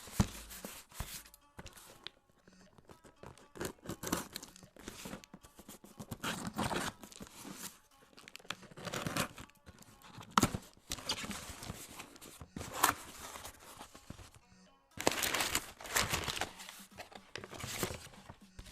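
Packaging being handled and opened: irregular crinkling, tearing and rustling of plastic and cardboard in uneven bursts, over quiet background music.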